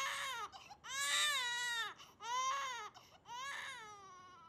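Infant crying: four cries in a row, each rising and then falling in pitch, the last one quieter and trailing off.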